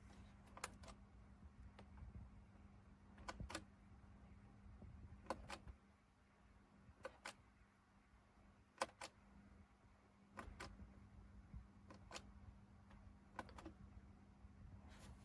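Faint sharp clicks, mostly in quick pairs, about every two seconds, over a low steady hum.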